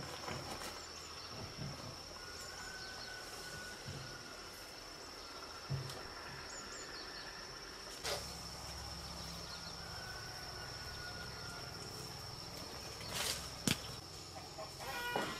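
A steady, high-pitched insect drone with a few sharp knocks, and a chicken clucking near the end.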